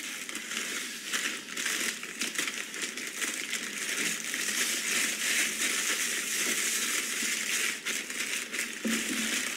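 Crisp dry food being crushed by hand inside a plastic zipper bag: continuous crunching and crackling with the plastic crinkling.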